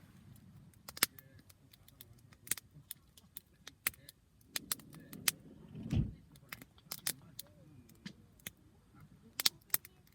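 Wood campfire crackling, with sharp irregular pops and snaps. A low rumble swells and fades about six seconds in.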